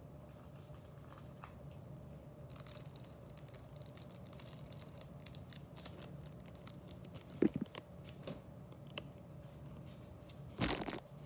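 Diecast toy cars being handled: scattered light clicks and rustles, a sharper knock about seven and a half seconds in and a louder scrape near the end, over a steady low hum.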